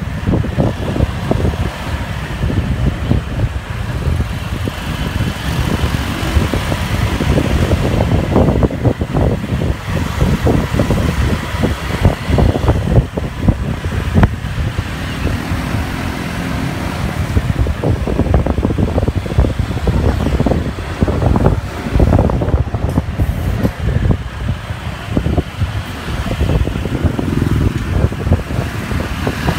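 Wind buffeting the microphone of a phone carried on a moving motorbike, a steady low rumble with frequent short gusts, over the motorbike's engine and the surrounding street traffic.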